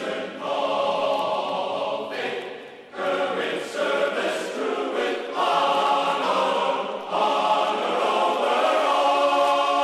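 Background music of choral voices singing long held chords that change every second or two, with a brief drop in loudness about three seconds in.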